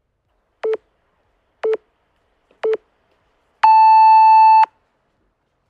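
Workout interval timer counting down: three short, lower beeps a second apart, then one longer, higher beep of about a second that marks the end of the exercise interval.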